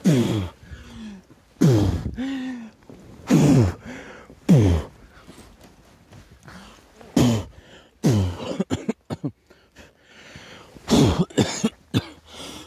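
A person coughing repeatedly: about eight harsh coughs, singly and in pairs, with short pauses between.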